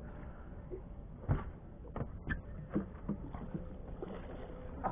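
A few scattered knocks and small splashes over a low hiss of wind and water, the loudest knock about a second and a half in: a landing net handled against a fiberglass boat's side while a hooked summer flounder splashes at the surface.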